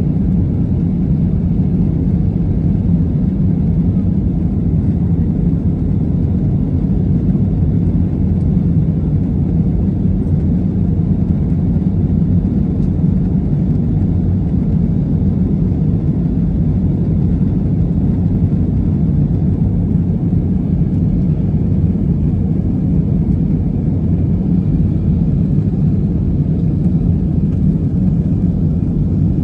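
Steady low rumble of an Airbus A320neo's jet engines and rushing air, heard from inside the passenger cabin in flight.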